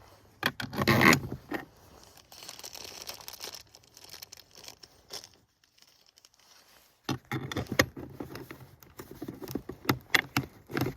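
Small metal bolts and washers clinking and scraping as they are handled and fitted by hand, with a louder rustle about a second in and a run of light clicks and knocks in the last few seconds.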